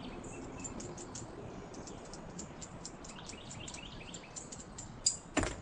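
Small birds chirping in quick, repeated high notes, with two sharp knocks close together near the end.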